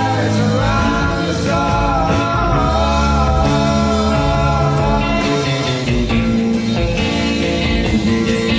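Rock music with a steady drum beat and a gliding melody line over a sustained bass.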